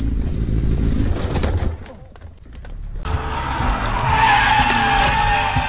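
A low engine and road rumble, then about four seconds in a car's tyres squeal loudly in a skid for about two seconds, the pitch wavering and sagging slightly.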